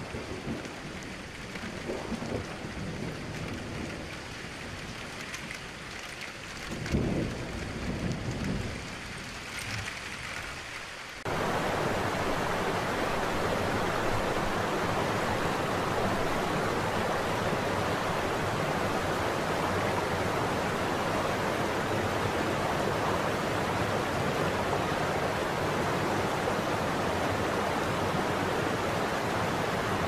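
Steady rain falling, with low rumbles of thunder about seven seconds in. About eleven seconds in it cuts abruptly to the louder, even rush of a large waterfall, which holds steady.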